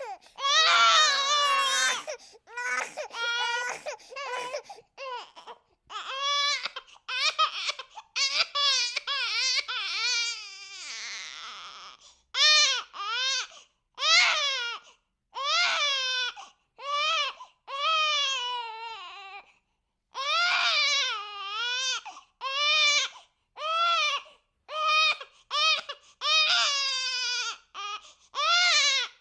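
Cartoon baby character crying: a run of short, high-pitched wailing cries about a second each, one after another with brief catches of breath between, and a longer breathy sob about ten seconds in.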